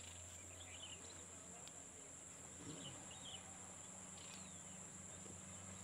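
Faint rural outdoor ambience: a steady, high-pitched insect drone with a few short bird chirps.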